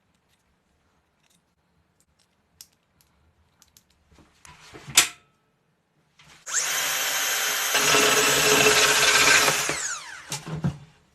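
Electric drill running at speed for about three and a half seconds, then spinning down as the trigger is released. Before that come a few light clicks and one sharp loud knock or scrape.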